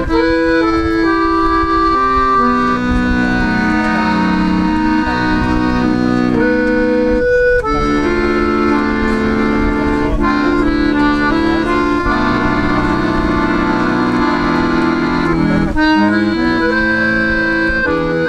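Accordion playing a melody over held chords, with notes changing every half second to a couple of seconds.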